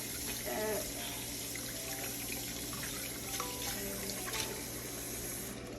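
Kitchen tap running into a sink while raw chicken pieces are rinsed by hand; the flow stops just before the end.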